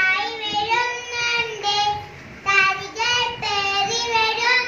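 A young girl singing solo into a microphone, in long held notes with a brief pause about two seconds in.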